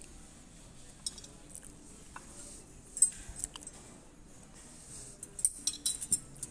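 Light clicks and clinks of tableware at a dining table, scattered and coming in a quick cluster near the end.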